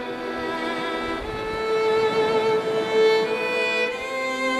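Slow background music with long held notes that change every second or two.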